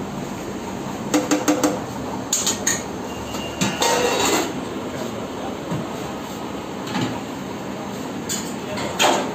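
Stainless-steel food-pan lids and a ladle knocking and clattering against steel serving pans: four quick clinks about a second in, a longer clatter around four seconds and another knock near the end, over a steady kitchen background noise.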